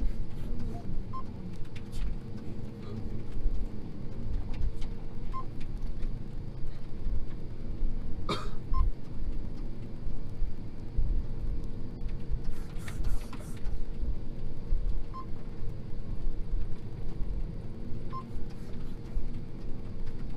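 John Deere T670i combine harvester running on the move, heard as a steady low drone inside the cab. Short high beeps come every few seconds, with a single click about eight seconds in.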